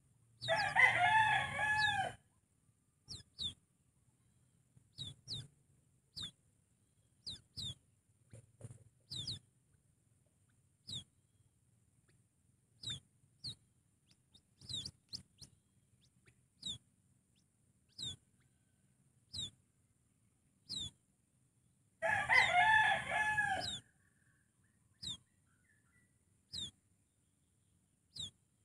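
A rooster crows twice, about twenty seconds apart. Between the crows, a short, high, falling chirp repeats every second or two.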